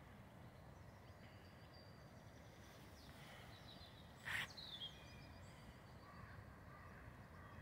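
Faint outdoor ambience with quiet, high bird chirps in the distance, and one brief sharp noise about four seconds in.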